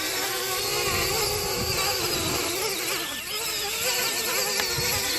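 Parrot Bebop 2 quadcopter's propellers whining close by, the pitch wavering up and down as the motors adjust to hold it steady in gusty wind. Wind buffets the microphone underneath.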